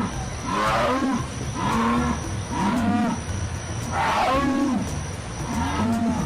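Jaguar calling: a series of about five deep, grunting calls, roughly one a second, each rising and falling in pitch.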